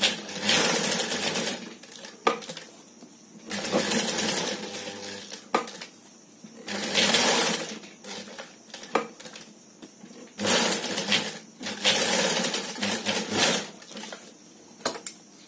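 Industrial sewing machine stitching a velcro strip onto a bag panel, running in about five short runs with brief stops between them as the panel is turned, and a few sharp clicks in the pauses.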